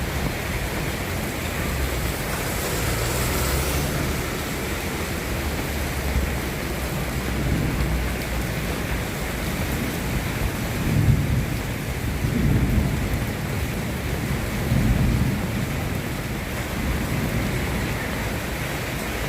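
Steady rain falling, a continuous even hiss, with a few low rumbles swelling up about halfway through.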